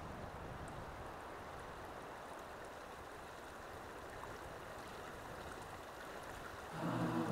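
A stream rushing steadily over rocks. Music comes in near the end.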